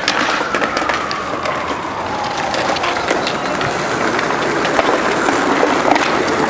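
Skateboard wheels rolling over a paved stone plaza: a steady rumble with repeated clicks and knocks as they cross the joints between the pavers. A faint tone slowly falls in pitch over the first three seconds.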